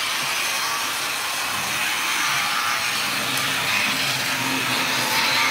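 00-scale model trams running on their track: a steady whirring of small electric motors and metal wheels rolling on the rails.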